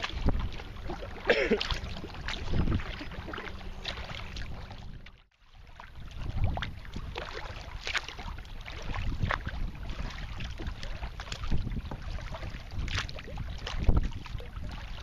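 Sea kayak paddle strokes splashing, with water lapping against the hull. The sound cuts out briefly about five seconds in.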